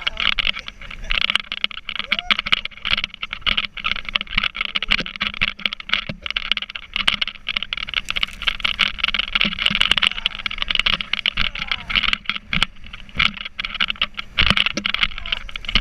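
Rushing wind and water spray on an inflatable sofa boat towed at speed behind a motorboat, a loud, gusting rush with constant sharp crackles of spray, over a faint steady hum.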